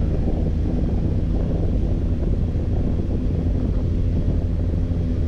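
Benelli 600 GT motorcycle's inline-four engine running at a steady cruise, heard under heavy wind noise on the microphone.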